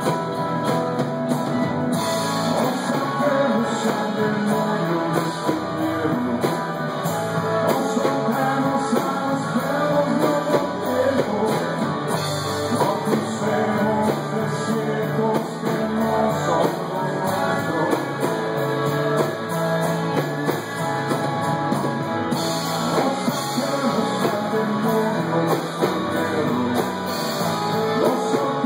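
A rock band playing live: strummed guitar, bass guitar and drum kit, with a man singing.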